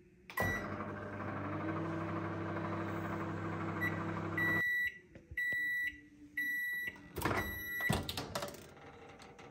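Microwave oven running with a steady hum, which cuts off about four and a half seconds in, followed by about four high beeps roughly a second apart signalling the end of the heating cycle. A sharp click of the door latch comes near the end as the door is opened.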